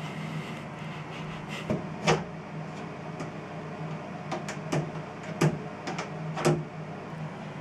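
Interior door lever handle being worked from the other side: a series of sharp latch clicks and knocks, a pair about two seconds in and a cluster between four and a half and six and a half seconds, over a steady hum.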